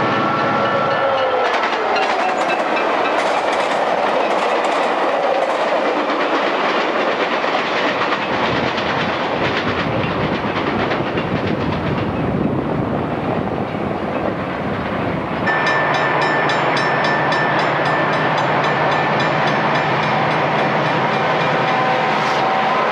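Passing diesel trains. A horn sounds in the first second and drops in pitch as a commuter train goes by, then the rumble and rail clatter of its bilevel cars runs on. About fifteen seconds in there is a sudden change to a grade crossing, where a bell rings steadily as diesel freight locomotives pass.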